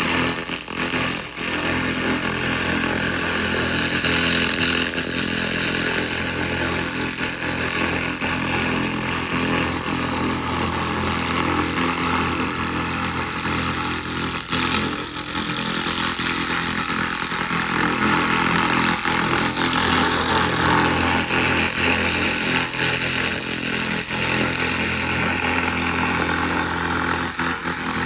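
SFX 2000 laser rust remover running on metal: a steady buzzing hiss with fine crackle over a low, even machine hum.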